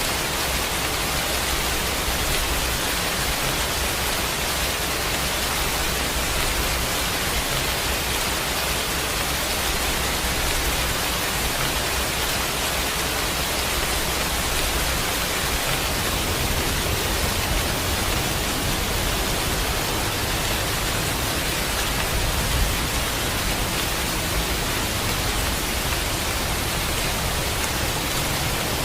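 Steady heavy rain, a dense even hiss with no single drops standing out.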